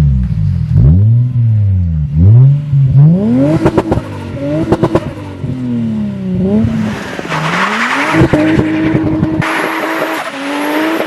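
Lexus IS 200t's turbocharged four-cylinder engine revved several times, the revs rising and falling, with a rapid fluttering chatter from the turbo as the throttle is let off about four to five seconds in. After that the engine settles to a steady low note under a loud hiss.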